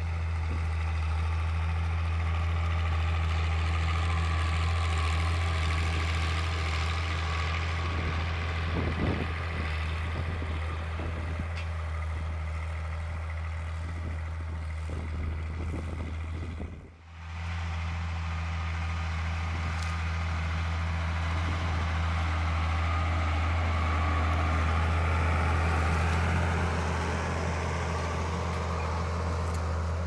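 Ford 7810 III's 6.6-litre six-cylinder diesel engine running steadily under load, pulling a disc harrow through the field. There is irregular knocking for a few seconds near the middle, and the sound drops out briefly about halfway through before the engine is heard again.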